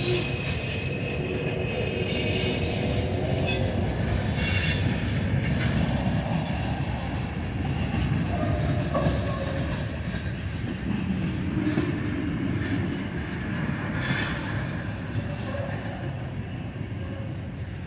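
Freight cars of a mixed manifest train rolling past: steel wheels rumbling and clattering on the rails, with a few knocks and brief thin wheel squeals. The rumble eases off near the end as the last tank cars go by.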